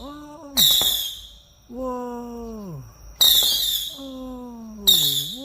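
A 200-gram consumer fireworks cake firing shots: three sharp, crackling bursts, about half a second, three seconds and five seconds in. Between the shots a person calls out long 'whooo' cheers that fall in pitch.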